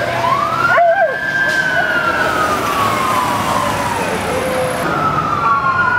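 Code 3 sirens from a fire engine and battalion pickup passing close by. One siren wails up in pitch and then falls slowly as it goes past. About five seconds in, another siren starts up over the traffic noise.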